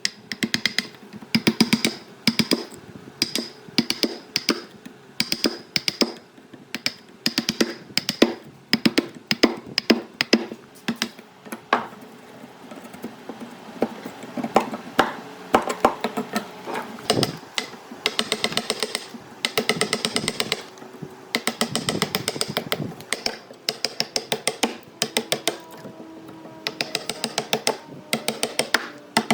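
Rapid, irregular sharp clicks and taps, several a second.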